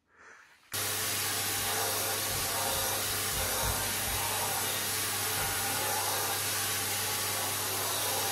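Vacuum cleaner running, its hose nozzle run over a dog's coat: a steady rush of air over a low steady hum, starting abruptly under a second in.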